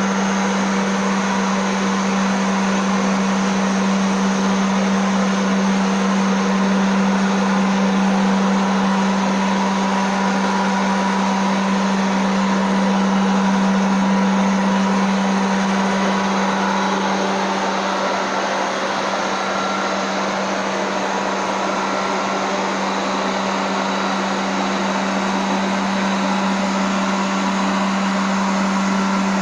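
Jisiwei I3 robotic vacuum cleaner running: a steady motor hum with a strong low drone under an airy hiss.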